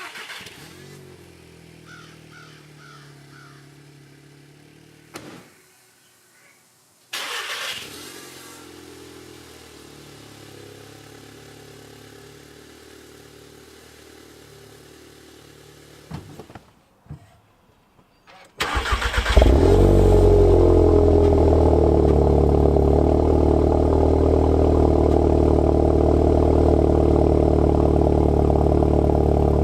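A Volkswagen Golf R's 2.0-litre turbocharged four-cylinder engine started three times in separate clips, each catching with a short rev flare and settling to idle, heard through different exhaust setups (stock, resonator delete, AWE Track). The first two start-ups are fairly quiet. The third, a little past halfway, is much louder and idles steadily.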